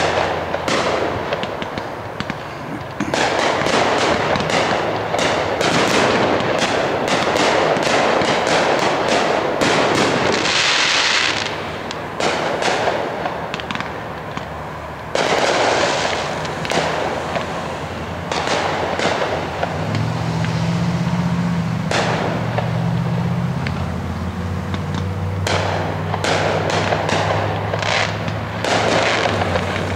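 Aerial fireworks display: shells bursting one after another with crackle, in dense, nearly continuous stretches broken by short lulls.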